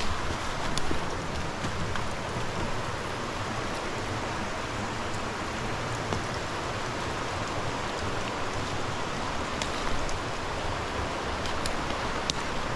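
Steady hiss of water, rain or running water in wet woodland, with a few faint sharp clicks.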